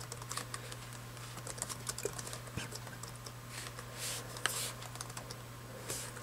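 Typing on a laptop keyboard, the 17-inch 2007 MacBook Pro's: quick runs of key clicks with short pauses between them, and a few harder keystrokes later on.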